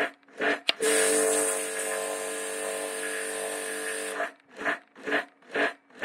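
Kärcher electric pressure washer's motor and pump cutting in and out in short pulses about twice a second, with a click, then running steadily for about three seconds before pulsing again. This stuttering on-off cycling is the fault the owner is asking about.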